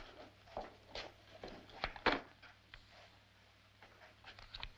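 A handful of short knocks, clunks and rustles in the first two seconds or so, then a few fainter ticks near the end: people shifting about a wooden room and handling a rifle and a ledger at a wooden table.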